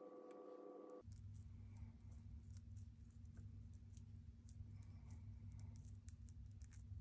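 Near silence: room tone that changes about a second in to a steady low hum, with faint, irregular small clicks scattered throughout.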